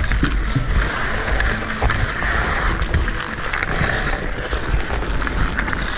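Hockey skate blades scraping and carving on natural pond ice, with wind buffeting the microphone and scattered sharp clicks of sticks striking the puck and ice.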